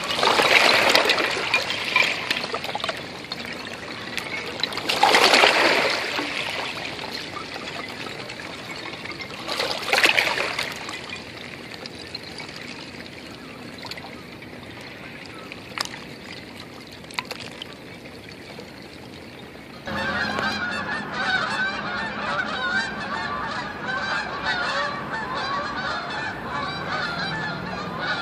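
Small waves washing in three times over rounded shore rocks and floating chunks of ice, with a few sharp clinks of ice knocking against ice and stone. About twenty seconds in, this changes abruptly to a flock of Canada geese honking continuously.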